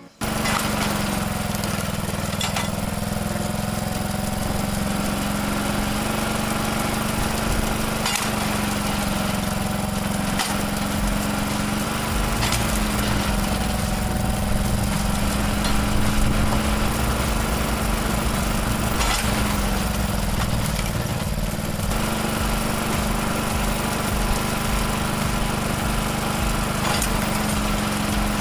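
Small petrol engine of a log splitter running steadily with a constant hum, with several short sharp knocks as logs are split.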